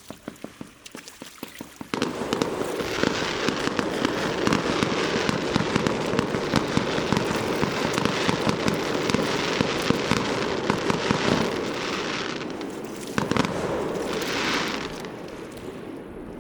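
Fireworks bursting: a few scattered pops, then about two seconds in a dense, rapid crackle of many small reports that fades away near the end.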